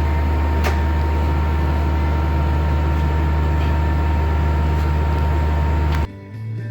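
Window-type air conditioner running on test after repair, its compressor and fan giving a loud, steady low hum with a thin steady whine, while it blows cold. The sound cuts off abruptly about six seconds in.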